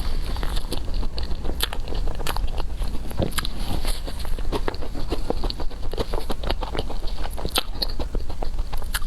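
Close-up eating sounds of a towel roll cake: irregular biting and chewing, with many small wet clicks and crackles.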